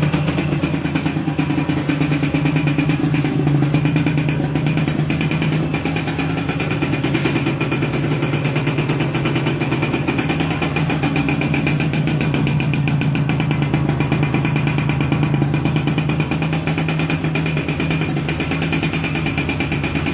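Suzuki Yaz two-stroke motorcycle engine running steadily at idle.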